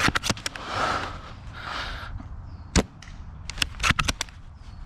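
Airsoft gunfire: sharp clicking pops in quick runs near the start and again about three and a half to four seconds in, with a single pop just before three seconds. Two soft rushes of noise come between the first pops.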